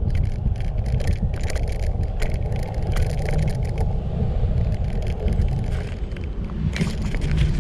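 Wind rumbling and buffeting on the microphone of a camera riding along on a moving bike, with frequent small knocks and rattles from bumps in the road.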